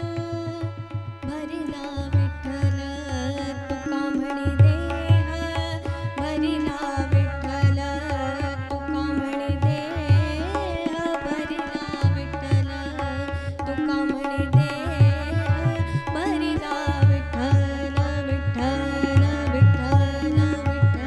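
Harmonium and tabla playing the accompaniment to a Marathi devotional abhang. The harmonium holds sustained chords, and the tabla comes in about a second in with a steady rhythmic beat of deep bass strokes.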